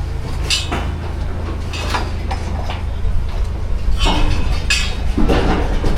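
Building-site work noise: scattered knocks and clinks over a steady low rumble.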